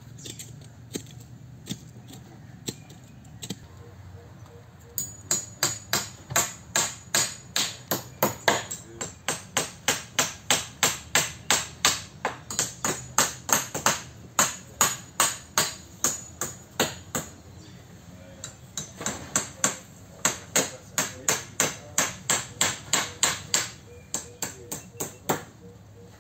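Hammer driving nails into a wooden-pole greenhouse frame: a few scattered blows, then from about five seconds in a steady run of sharp strikes, about two or three a second, with a short pause about two-thirds of the way through.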